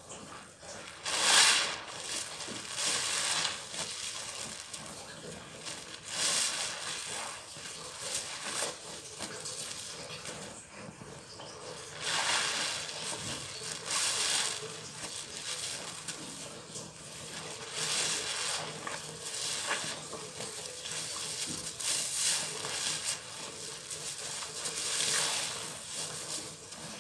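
Soapy sponges squeezed and worked in a basin of thick suds: wet squelching, with a louder squeeze every few seconds, the loudest about a second in.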